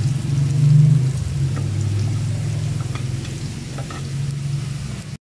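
Chopped garlic and onion sizzling softly in oil in a stainless-steel pot, with a few light scrapes of a wooden spatula, over a steady low rumble. The sound cuts out abruptly near the end.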